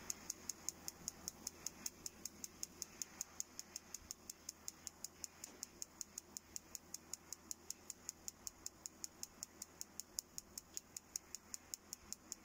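Spark igniter of a Truma Trumatic 3002 gas heater snapping sparks across a replacement ionization electrode in an even run of sharp clicks, about five or six a second. It keeps sparking even though the electrode is being heated with a blowtorch to imitate a flame: the flame-sensing cut-off is not working, which the owner suspects may be a missing ground.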